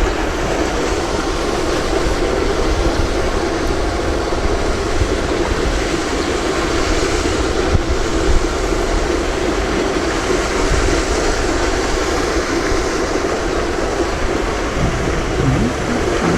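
Wind buffeting the microphone: a loud, steady low rumble without a break.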